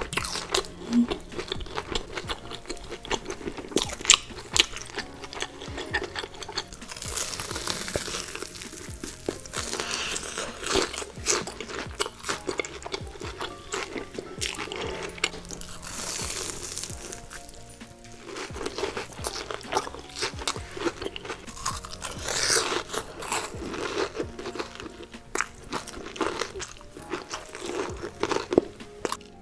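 Close-miked ASMR eating: crisp crunching and chewing as a person bites into deep-fried breaded cutlets, the crunches coming in several loud spells. Soft background music plays underneath.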